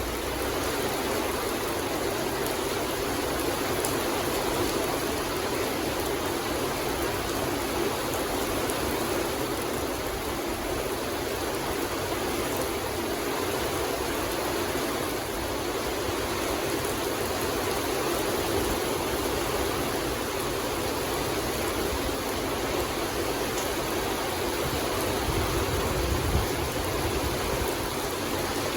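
Steady rain falling in a forest, an even hiss of rainfall that holds at the same level throughout.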